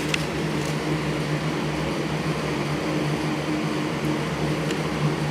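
Steady low mechanical hum with a faint hiss, of the kind a room fan or air conditioner gives.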